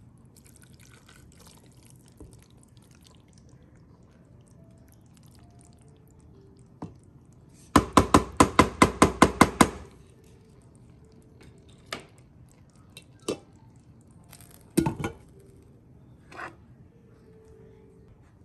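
A wooden spoon rapped about ten times in quick succession against the rim of a stainless cooking pot to knock off clinging macaroni goulash, with a few single knocks of the spoon and soft scraping as food is scooped into a ceramic mug.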